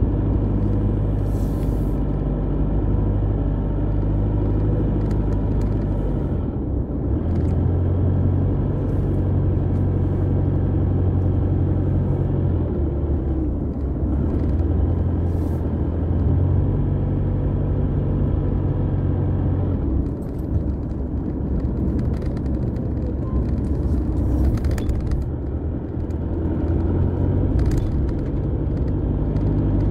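Car engine and tyre noise heard from inside the cabin while driving: a steady low drone whose engine note steps to a different pitch several times as the engine speed changes.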